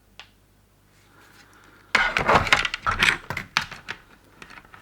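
A single click just after the start, then about two seconds of clattering and rattling as tools and small hard items are handled and set down on a workbench.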